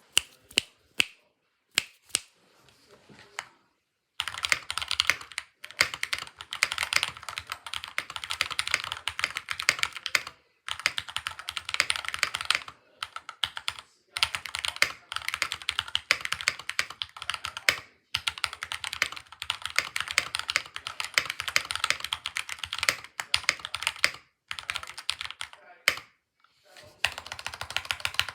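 Mechanical keyboard with modded Gateron Brown tactile switches being typed on: a few single keystrokes, then fast continuous typing from about four seconds in, broken by brief pauses.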